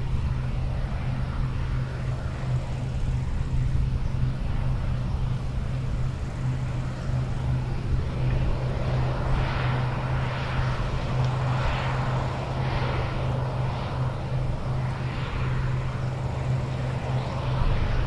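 New Holland CX8070 combine harvester running under load while harvesting wheat, with a tractor running alongside. It gives a steady low engine drone, with a rushing noise that swells and fades about once a second in the second half.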